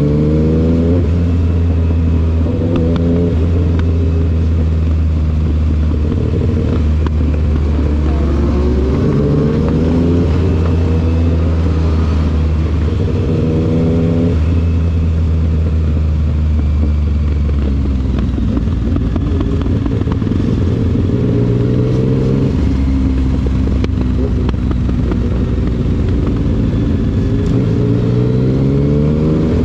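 Yamaha MT-09's three-cylinder engine pulling hard through the gears, its pitch rising in repeated sweeps and stepping down at quickshifter upshifts, with stretches of steadier running between the pulls.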